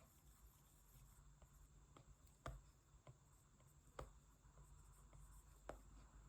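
Faint taps and strokes of a stylus on a tablet's glass screen while drawing: several light clicks over a low steady hum.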